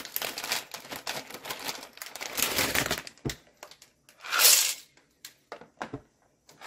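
Dry penne pasta rattling and clicking as it is handled, then a short rush of pasta poured from a cup into the pot about four seconds in, followed by a few scattered clicks of settling pieces.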